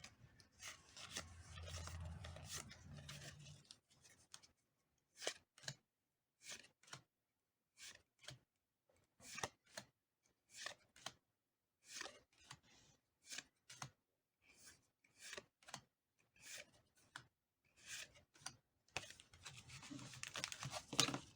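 Faint handling of Pokémon trading cards: a booster-pack wrapper crinkling and tearing for a few seconds, then cards flicked over one at a time, a short snap about every two-thirds of a second, and more wrapper crinkling near the end.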